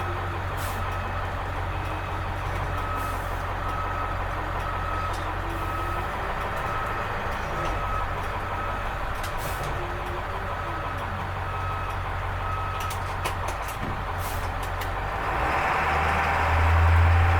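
Diesel bus engine running with its backup alarm beeping about once a second while it reverses; near the end the engine gets louder as it revs up.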